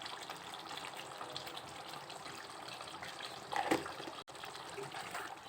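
Chicken curry simmering in the pan, a steady bubbling hiss, with one brief knock about three and a half seconds in.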